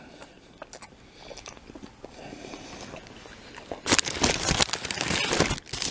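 A McDonald's hamburger's paper wrapper crinkling as it is handled. After a quiet stretch, it comes as a loud burst of crackling for about a second and a half, starting about four seconds in.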